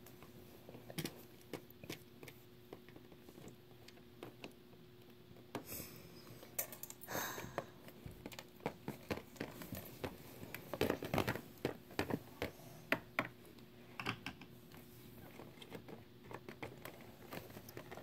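Irregular light clicks and taps of small plastic Littlest Pet Shop figures being handled and set down on a plastic treehouse playset, busiest in the middle, over a faint steady hum.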